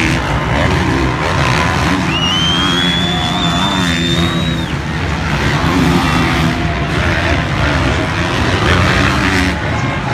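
Several motocross bikes racing on a dirt track, their engines revving up and down in overlapping waves over a constant background of crowd and track noise. A high, steady whine holds for about two and a half seconds near the middle.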